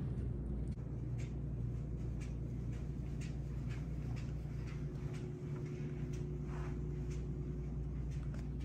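Footsteps at a walking pace, about two a second, over a steady low hum; a faint steady tone joins the hum about five seconds in and stops near the end.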